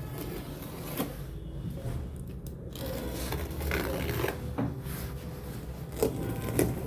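Parcel packaging being handled and opened: rustling and rubbing, with a few sharp clicks and scrapes about a second in and near the end.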